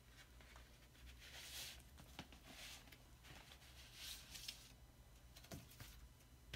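Faint rustling and sliding of a vinyl LP's cardboard sleeve and paper inner sleeve being handled, two soft swishes about a second and a half in and again around four seconds in, with a few light taps as they are set down.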